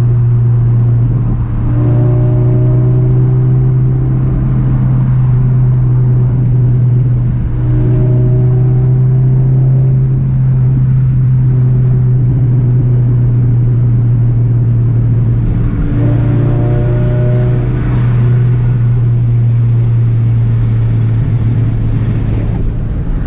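Scion FR-S's 2.0-litre flat-four engine running through a catless, non-resonated straight-pipe exhaust at a steady engine speed, making a constant low drone, with fainter higher tones coming and going.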